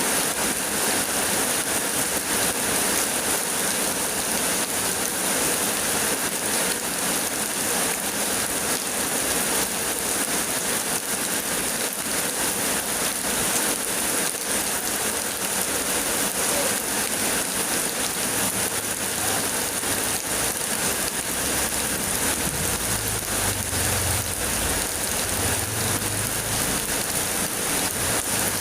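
Heavy rain pouring steadily, a dense even hiss of falling drops. In the last third a low rumble comes and goes beneath it.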